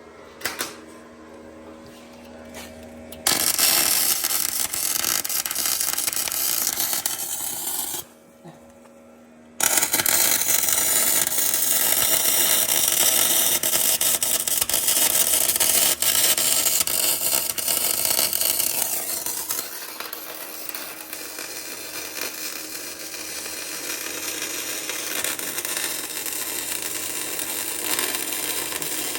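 Electric arc welding: a loud, steady hiss that starts a few seconds in, breaks off for about a second and a half, then runs on again, a little quieter in the second half.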